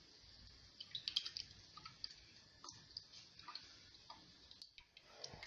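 Faint ticks and soft scraping of a ladle stirring thickening flour porridge (asida) in a pot, the ladle knocking lightly against the sides. The clicks are thickest about a second in.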